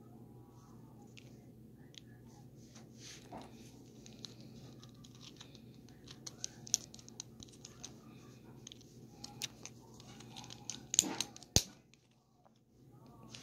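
Close handling noise from fingers at the phone's microphone: rubbing, rustling and scattered small clicks of plastic Lego pieces, with two louder sharp knocks about eleven seconds in.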